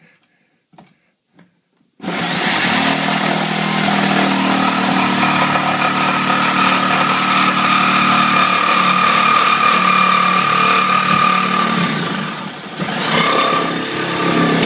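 Reciprocating saw (Sawzall) cutting through drywall. It starts about two seconds in and runs steadily with a high motor whine, drops away briefly near the end, then starts again.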